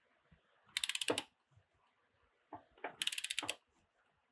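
Ratchet head of a TEKTON 1/2-inch drive click torque wrench clicking in two bursts of rapid clicks, about a second in and again near three seconds. It is turning a 14-flute socket on a Porsche Cayman's oil filter canister cap, snugging it toward its 19 ft-lb spec.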